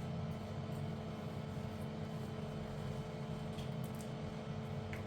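A steady low mechanical hum with a faint constant tone, like an appliance or fan running, with two faint clicks near the end.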